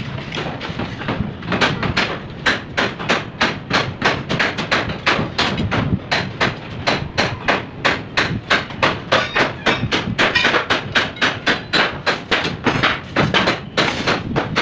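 Hammer blows struck in a steady rhythm, about three a second, settling into the beat about a second and a half in.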